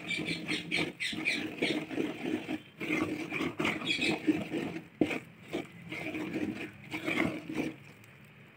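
Flat wooden spatula stirring and scraping a thick, wet batter of flour and mashed moong dal in a pot: a steady run of short mixing strokes, a few a second, dying away near the end.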